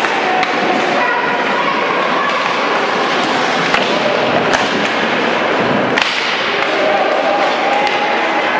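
Ice hockey game in an indoor rink: a steady din of skates, sticks and shouting voices, with a few sharp knocks of sticks, puck and players against the boards, the strongest about six seconds in.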